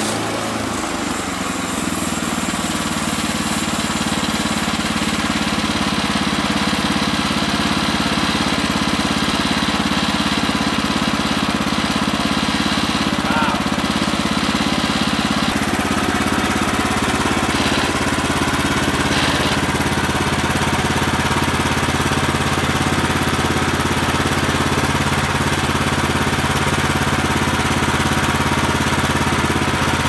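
Woodland Mills HM130MAX portable bandsaw mill's engine running steadily under load as the saw head is pushed through a log. Its note shifts about a second in and again around halfway.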